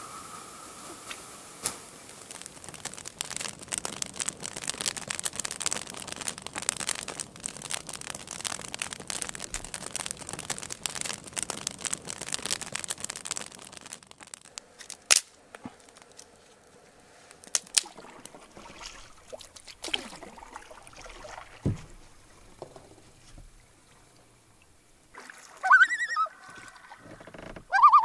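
Water splashing and trickling for about the first half, then quieter with a few scattered knocks. Near the end a common loon calls, a wavering cry ending in a long held note.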